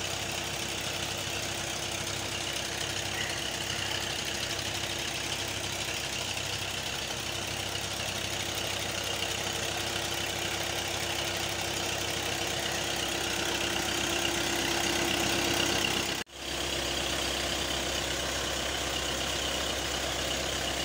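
Massey Ferguson tractor's diesel engine running steadily under load, driving two tube-well pumps, with water gushing from the delivery pipes into a concrete tank. Near the end the sound drops out for an instant and comes back with more low rumble.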